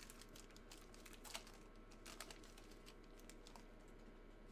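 Near silence with faint, scattered light clicks and taps, most of them in the first two seconds and one a little sharper about a second and a half in.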